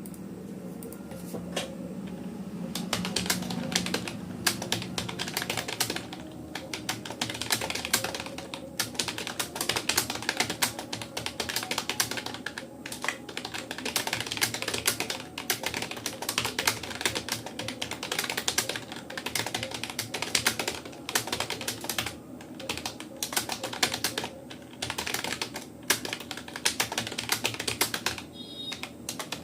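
Fast typing on a Rapoo computer keyboard: a dense, uneven stream of key clicks that starts about two seconds in, as letter keys and the space, Enter and Shift keys are drilled.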